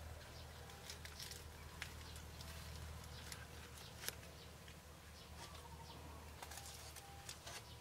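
Faint rural ambience: scattered small clicks and ticks, a few brief distant bird calls, and a steady low hum.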